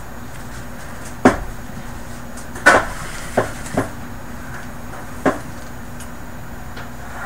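Five sharp knocks of hard objects striking, over a steady low hum. The loudest comes about a second in, and another strong one a little under three seconds in.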